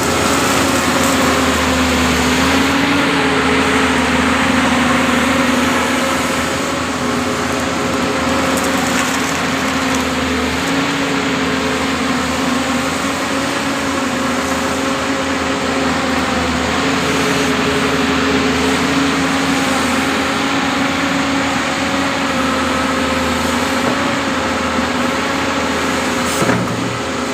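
Doosan 225 hydraulic excavator's diesel engine running steadily at working speed, its pitch dipping and rising slightly. A brief sharp knock sounds near the end.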